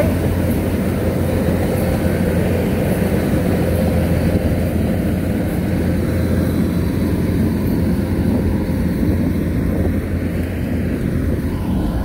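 Kubota combine harvester's engine running steadily, a loud continuous mechanical drone.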